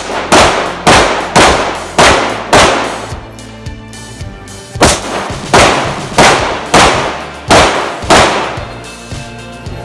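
Open-division Glock 17 pistol firing 9mm major loads in two quick strings of about six shots each, roughly half a second apart, with a pause of about two seconds between the strings.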